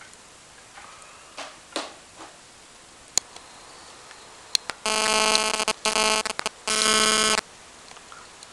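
A loud electronic buzz sounding in three bursts, each under a second, starting about five seconds in. A few faint clicks come before it.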